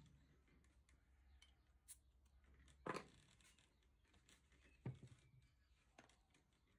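Near silence with a few soft clicks and knocks, the loudest about three seconds in and another about five seconds in, from hands handling things at a potter's wheel.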